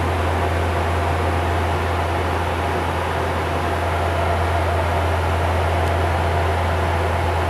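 Steady cockpit drone of a Bombardier Q400 turboprop in flight: a deep, even propeller hum from its six-bladed propellers under a constant hiss of engine and airflow noise.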